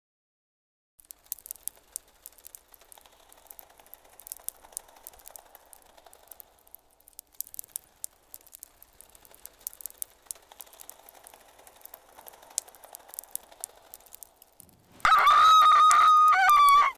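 Faint, sparse crackling and rustling, then a loud, shrill screech about two seconds from the end, held at one high pitch with a brief waver, cut off abruptly.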